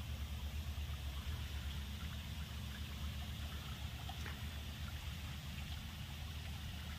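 Overhead mist sprinklers spraying water over oil palm seedlings: a steady, even hiss of spray, with a low steady rumble underneath.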